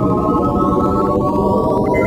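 Electronic synthesizer music: steady held high tones over a dense low drone, with faint rising sweeps high above and a new higher tone entering near the end.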